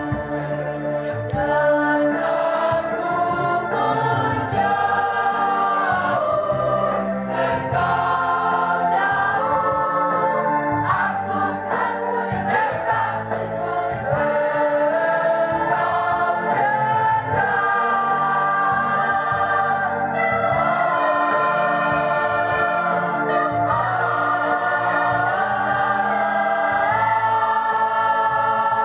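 Mixed choir of teenage boys and girls singing together, several voices on held notes that step from one note to the next.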